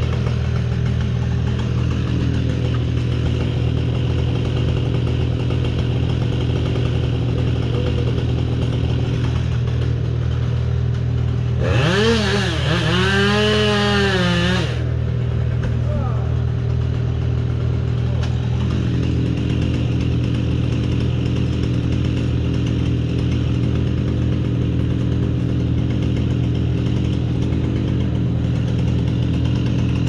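An engine runs steadily at a low drone throughout. About twelve seconds in, a chainsaw revs up, holds high for about three seconds, then drops back.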